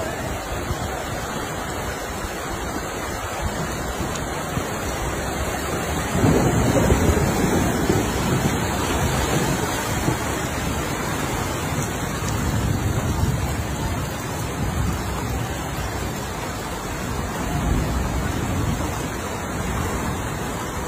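Floodwater rushing along a flooded street: a steady, even rushing noise that swells louder for about two seconds some six seconds in.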